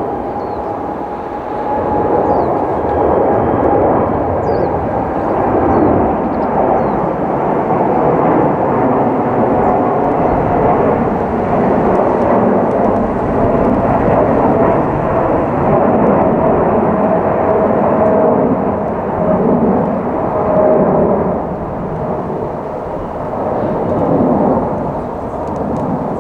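Boeing 787-10 jet engines running at go-around thrust as the airliner aborts its landing and climbs away: a loud rumble with a steady whine that slowly falls in pitch and eases off in the last few seconds.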